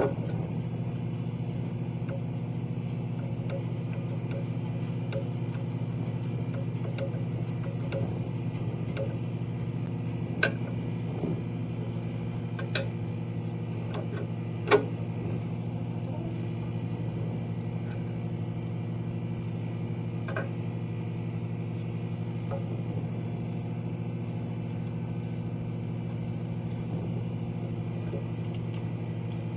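A steady low hum of running machinery, with a handful of sharp metallic clinks from hand tools working at the truck's battery terminals, the loudest about fifteen seconds in.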